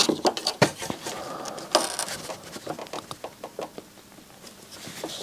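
Irregular light clicks and taps of the receiver's parts and latches being pressed and worked by hand during disassembly, busiest in the first two seconds and thinning out afterwards.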